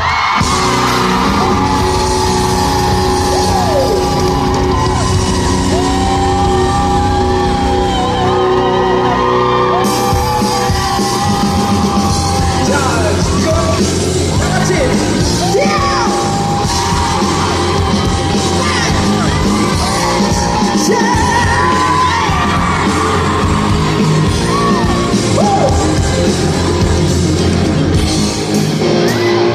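Live rock band playing loudly in a large hall. Long held high notes, each bending down at its end, sound over the band several times, and there are yells.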